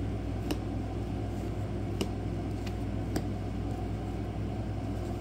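Trading cards being flicked through one at a time: a few short, light clicks, three of them plain, over a steady low hum.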